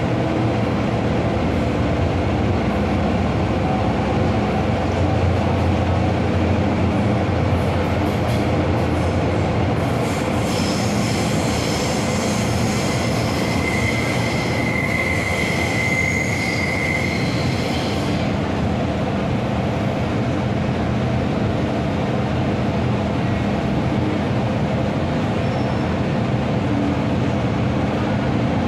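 MTR M-Train metro train running with a steady low rumble. Partway through, its wheels squeal for about eight seconds, a high screech that stops suddenly.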